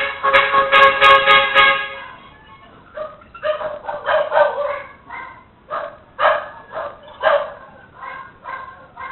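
A vehicle horn sounds for about two seconds in quick pulses, then a dog barks repeatedly, heard through a security camera's microphone.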